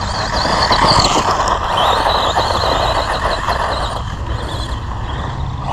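Electric Tamiya RC car with a brushed motor running on loose sand: a high motor-and-gear whine that rises and falls with the throttle, over a steady hiss of tyres on the dirt.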